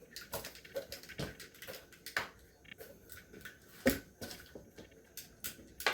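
Plastic fidget toys being handled and set down, giving irregular clicks and taps, with one louder knock about four seconds in.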